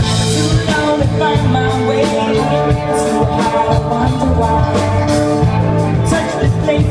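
Rock band playing, with a steady drum beat, a moving bass line and guitar.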